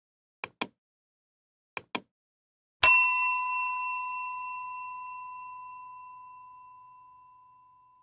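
Two quick pairs of light clicks, then a single bright bell ding that rings on one clear note and fades away over about four seconds, set in dead silence like an edited-in outro sound effect.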